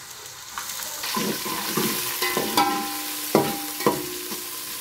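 Chopped onions frying in hot oil in a cooking pot, sizzling louder from about half a second in, with a spoon knocking and scraping against the pot several times as they are stirred while they brown.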